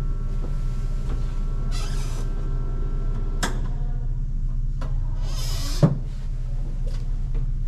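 Clicks, creaks and knocks from the door of a wooden tramcar being handled, the loudest knock about six seconds in, over a steady low hum, with two short hisses.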